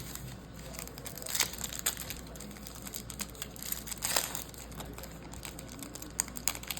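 A trading-card pack wrapper crinkling and rustling as it is torn open and handled, in many small crackles. There are two louder rustles, about one and a half seconds in and about four seconds in.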